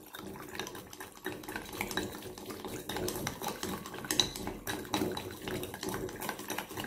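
Wooden chopsticks briskly whisking a thin soy-based sauce in a ceramic bowl, with rapid clicking of the chopsticks against the bowl and the splash of the liquid.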